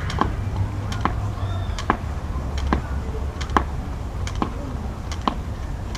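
Skipping rope on a paved path, one sharp slap about every second as each turn of the rope strikes the ground during single-leg hops, over a low steady rumble.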